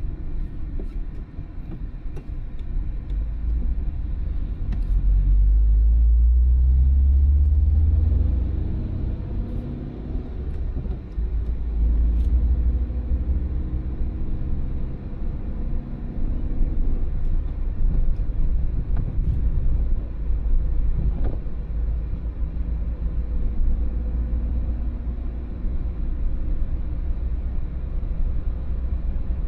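A car driving on town roads: steady low engine and road rumble, loudest about a fifth of the way in. The engine note then rises as the car accelerates, and again about halfway through.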